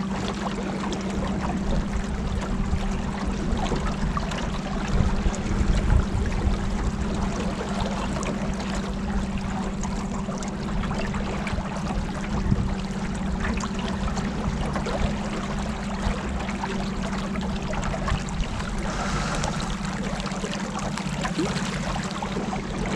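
Motorboat cruising on the river: the engine holds a steady hum under the rush of water along the hull, with a slightly louder stretch around five to six seconds in.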